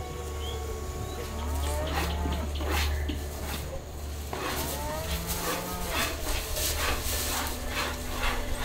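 Cattle mooing several times, over a low steady hum. In the second half comes a quick, regular run of short strokes: milk squirting into a pail as a cow is milked by hand.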